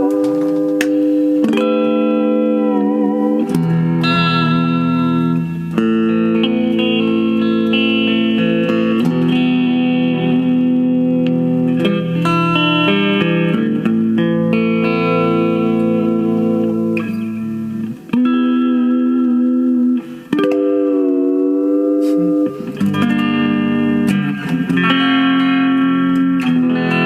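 Yamaha SE350H electric guitar played through a small Roland Micro Cube amp: sustained chords changing every second or two. A few seconds in, and again near the end, the whole chord's pitch wobbles together, as the Floyd Rose-style tremolo arm is worked.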